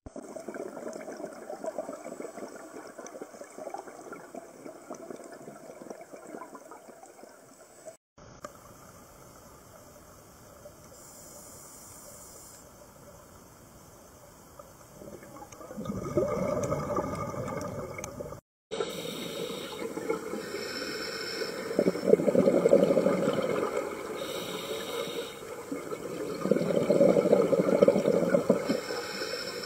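Underwater sound: a steady water hiss with louder surges of bubbling every few seconds in the second half. The sound breaks off briefly twice.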